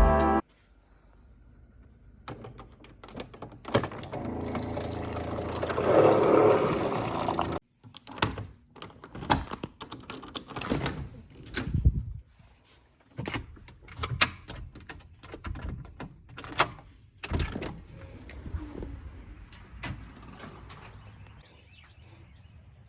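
Household handling noises: a steady hum for about five seconds, then a run of knocks and clicks like doors, cupboards or objects being set down.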